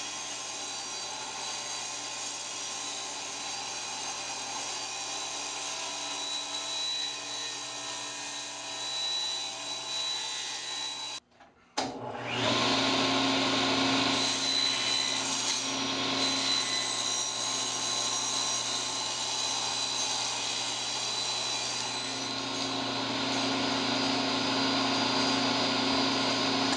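Table saw running as plywood is fed through the blade for straight cuts. The sound breaks off abruptly about eleven seconds in and comes back louder.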